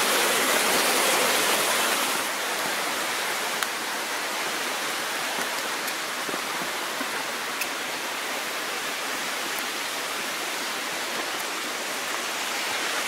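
Creek waterfall rushing steadily. It drops a little in level about two seconds in, and a few faint ticks sound over it.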